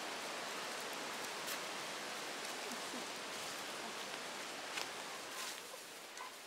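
Steady hiss with faint rustling and a few light cracks of dry sticks and leaves being laid onto a pile of firewood. The level drops slightly near the end.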